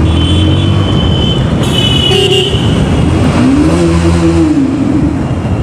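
Motorcycle engine running while riding through an underpass, its pitch rising and then falling back about halfway through as the rider revs up and eases off. Two short high-pitched horn toots sound in the first two and a half seconds.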